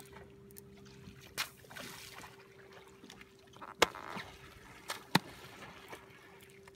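Mobula rays leaping and slapping back down onto the sea surface: several sharp slaps, the loudest about four and five seconds in, over water lapping.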